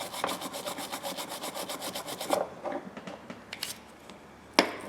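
Brass wire brush scrubbed quickly back and forth over steel pliers, about seven strokes a second, stopping about halfway through, followed by a couple of light knocks.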